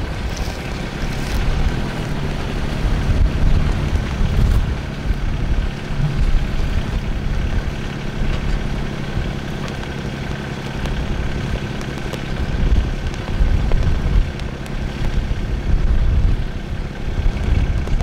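Tractor engine running steadily, with strong wind buffeting the microphone.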